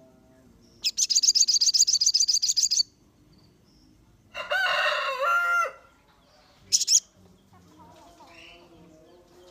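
A sogon songbird singing a rapid, high trill of about twenty notes a second, lasting about two seconds. About four and a half seconds in, a rooster crows for over a second, and a short high chirp follows near the end.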